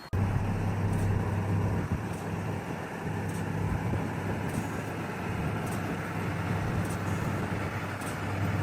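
A heavy machine's engine running steadily, a low even drone with no change in pitch.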